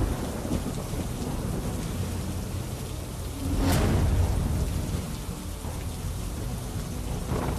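Heavy rain hissing steadily over a low rumble of thunder, with a louder rumble and crack about four seconds in.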